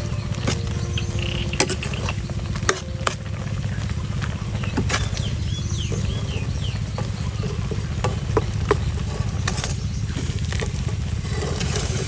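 Cooking sounds: steady frying sizzle and stirring, with scattered sharp knocks and clicks of utensils over a low rumble.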